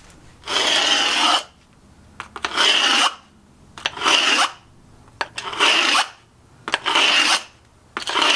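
A file scraped along a straight edge across a stone paving flag to score a cutting line, in about six rasping strokes, each under a second long, with short pauses between them.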